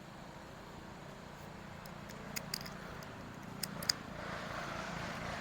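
A vehicle passing, its noise building steadily over the last few seconds, with a few light clicks in the middle.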